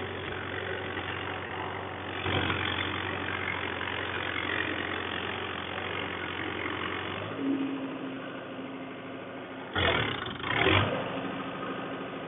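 Mahindra Yuvo 575 DI 4WD tractor's four-cylinder diesel engine running under load in loose tilled soil, with four-wheel drive engaged. The engine note steps up about two seconds in and eases about seven seconds in. A brief louder burst comes about ten seconds in.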